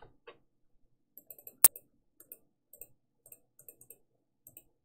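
Computer mouse clicking: a dozen faint short clicks and one sharp, much louder click about a second and a half in.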